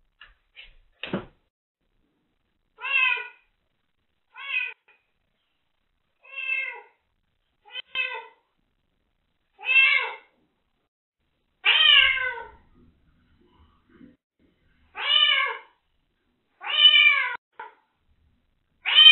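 Young kitten meowing over and over, about nine cries one to three seconds apart, each rising and then falling in pitch. She is crying while alone in an unfamiliar room she has just been moved into, picked up by a security camera's microphone.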